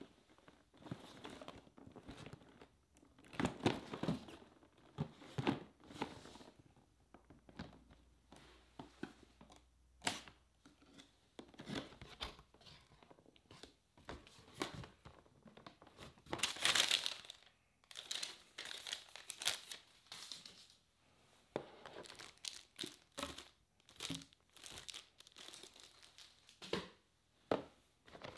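Cardboard packaging of a Canon EOS R6 camera box being handled and opened by hand: irregular rustles, scrapes and crinkles of cardboard and paper, with a longer, louder rustle about seventeen seconds in.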